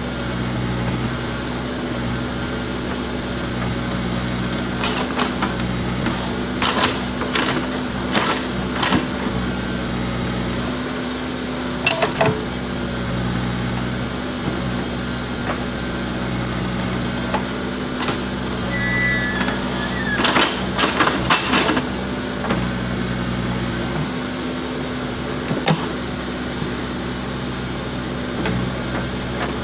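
Backhoe loader's diesel engine running steadily, with clusters of sharp knocks as it works.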